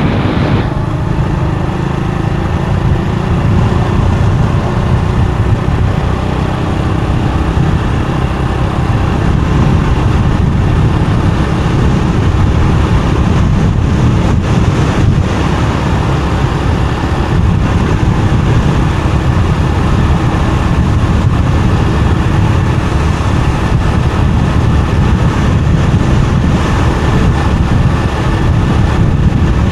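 Steady rumble of a moving motorbike: engine and road noise mixed with wind buffeting the microphone, holding level throughout.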